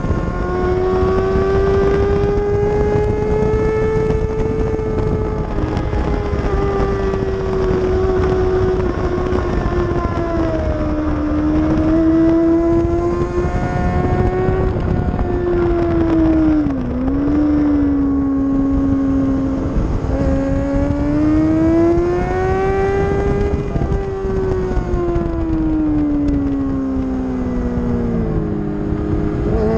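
Kawasaki ZX6R inline-four engine running hard on track, heard from a camera mounted on the bike. Its pitch rises and falls steadily with throttle and gears, dips sharply and recovers just past halfway, then falls and climbs steeply again near the end, with a constant rush of wind underneath.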